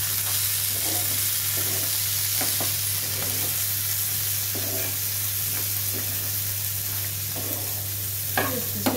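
Boiled black chickpeas and ground spices sizzling in oil in a frying pan while a spatula stirs them, scraping and knocking lightly against the pan, with a louder knock near the end. A steady low hum runs underneath.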